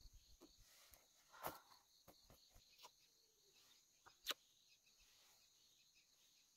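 Faint, steady insect chirring in the grass, high-pitched, with a few soft clicks; the sharpest click comes about four seconds in.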